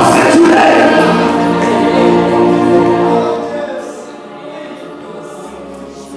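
A choir singing a worship song together in long held notes, dropping much quieter about three and a half seconds in.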